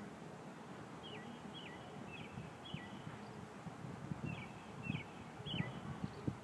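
A bird calling: a run of four short falling whistled notes about two a second, then three more a second or so later. Soft low thumps come in scattered through the second half.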